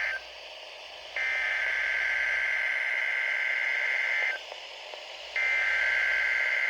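Emergency Alert System SAME header tones over NOAA Weather Radio: buzzy two-tone digital data bursts repeated with about a second of radio hiss between them, marking the start of an alert. One burst ends right at the start, a second runs about three seconds, and a third begins near the end.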